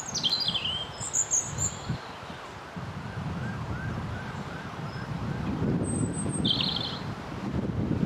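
European robin singing high, thin, descending phrases, once near the start and again near the end. In the middle a faint wail rises and falls at an even pace, about three times a second, like a distant siren, over a steady low background rush.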